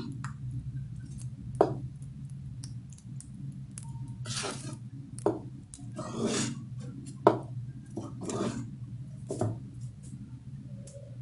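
Wooden spatula stirring thick haleem in a metal pot, making repeated scraping sounds and a few sharp knocks against the pot, over a steady low hum.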